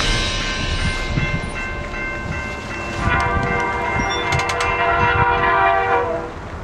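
Diesel locomotive horn sounding a steady multi-note chord over the low rumble of the passing train, blowing louder again about halfway through and stopping shortly before the end.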